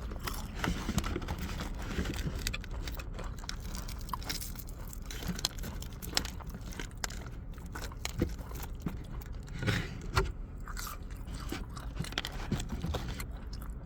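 A person biting into and chewing crunchy spicy fried chicken from Church's Texas Chicken, with irregular crisp crunches of the breading.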